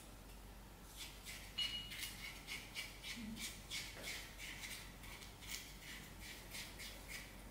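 Quick scraping strokes inside a porcelain mortar as it is worked, about three a second, starting about a second in.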